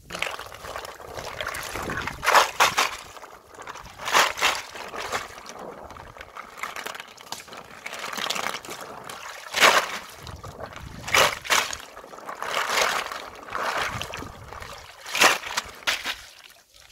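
Water sloshing and splashing as a wicker basket full of snails is dunked and swished in shallow stream water to rinse them, in repeated louder surges every second or two.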